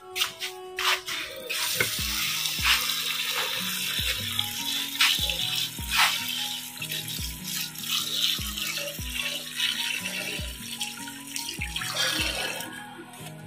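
Tap water running into a steel bowl as rice is rinsed by hand, the splashing starting about a second and a half in. Background music with a steady beat plays underneath.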